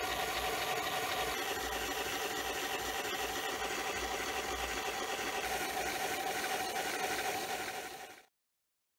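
Hornby OO-gauge A4 'Bittern' model locomotive running steadily on a rolling road, its motor and gearing giving a steady whine as it is run in after little use. The sound fades out near the end.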